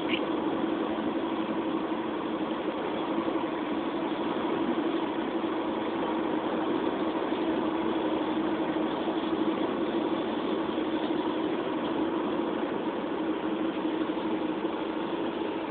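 Steady engine and road noise of a car driving along, heard from inside the cabin, with an even hum and no breaks.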